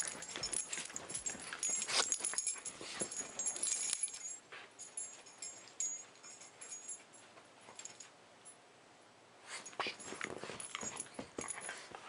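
A small dog nosing right at the microphone: close sniffing, snuffling and scuffling clicks, busy for the first few seconds, quieter in the middle, then busy again near the end.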